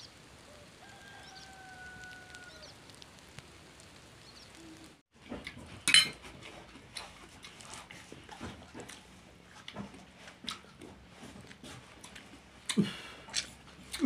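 A faint drawn-out animal call over a soft background hiss. Then, after a short gap about five seconds in, a metal spoon clinks and scrapes irregularly on a ceramic plate as food is scooped, with one sharp clink about a second after the gap.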